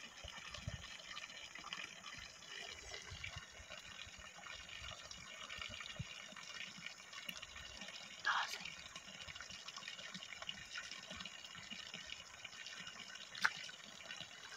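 Faint, steady trickling water, with a short louder sound about eight seconds in and a sharp click near the end.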